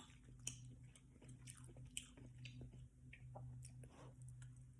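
Faint chewing and mouth sounds of someone eating lo mein noodles: soft scattered clicks and smacks over a steady low hum.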